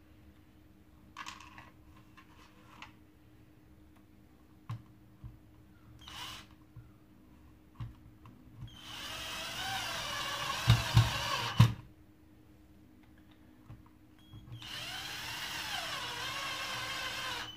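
Cordless electric screwdriver whining in two runs of about three seconds each, one about halfway through and one near the end, driving screws into a plastic vacuum floor nozzle's housing. A few sharp knocks come at the end of the first run, and faint clicks and taps come before it.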